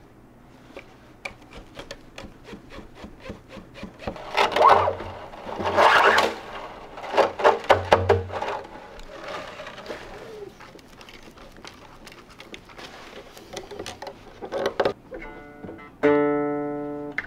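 Koto strings being plucked: a run of quick plucks, louder strummed passages in the middle, then a single string note ringing out and fading near the end.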